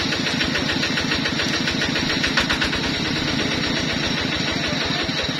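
An engine running steadily, with a fast, even pulse.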